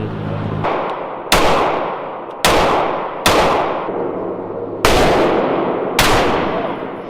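Gunfire: five single shots at an uneven pace, each a sharp crack followed by a long echoing decay.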